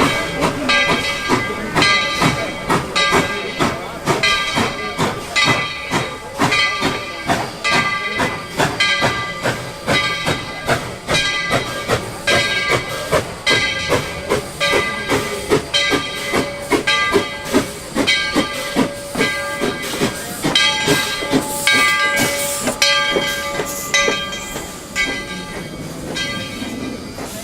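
Steam locomotive working, its exhaust chuffing evenly about two to three times a second over a steady hiss of steam.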